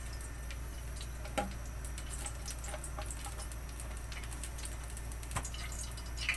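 Steady low hum with faint scattered ticks and a few sharper clicks, about a second and a half in and again near the end, as cooking oil starts to heat in a stainless steel wok before sautéing.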